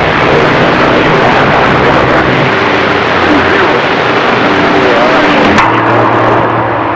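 CB radio receiving distant skip signals on channel 28: loud static hiss with garbled voices of far-off stations faintly audible under it, and steady hum tones that shift after a sharp click about two thirds of the way in.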